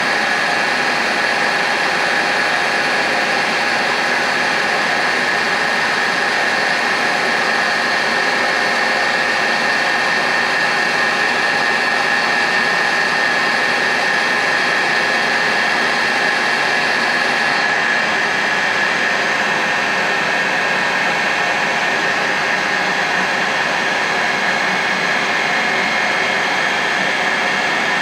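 DeVlieg Spiramatic CNC jigmill running: a steady machine hum and hiss with a constant whine. About two-thirds of the way through the highest hiss eases off.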